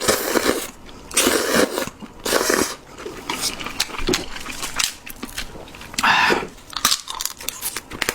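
Close-miked eating of seafood ramen: several loud, noisy bursts of slurping or biting in the first three seconds and again around six seconds in, with chewing and small crunching clicks in between.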